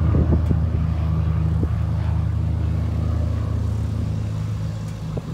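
Cessna 182's six-cylinder piston engine and propeller droning steadily as the plane climbs out after takeoff.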